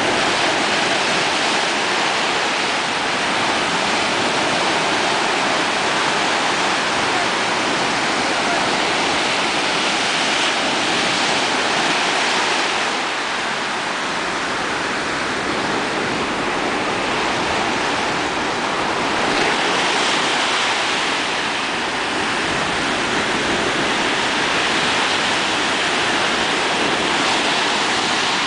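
Sea surf breaking and washing around the shallows, a loud steady rush of water that swells now and then.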